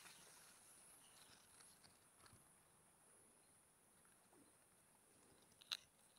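Faint rustling of long grass blades being parted by hand, with a steady high-pitched hiss throughout and one sharp crackle of leaves near the end.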